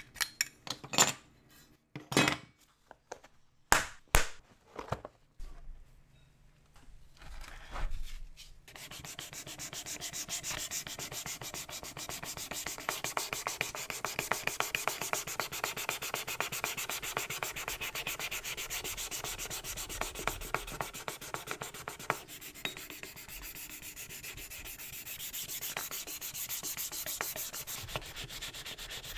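A few sharp clicks and clinks of the diecast model's metal parts being handled and pulled apart. Then, from about nine seconds in, steady rapid back-and-forth strokes of a sanding pad rubbing over the bare, paint-stripped diecast body of a 1964 Ford Galaxie model.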